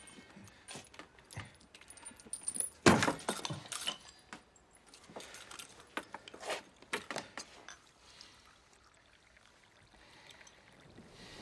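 Small metallic clinks and clicks from handling a broken mantel clock, the loudest about three seconds in, thinning out after about seven seconds. Near the end, tea is poured from a metal teapot through a strainer into a cup.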